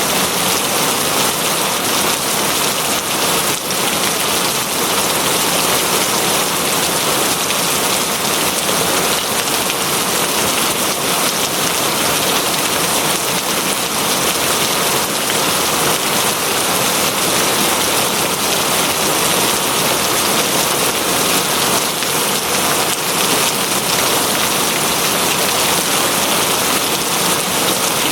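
Steady heavy rain falling on a surface, a dense, even hiss.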